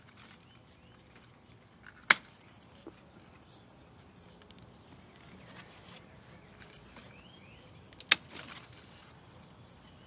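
Two sharp snaps about six seconds apart, with a short rustle of leaves after the second, as grape clusters are cut from the vine.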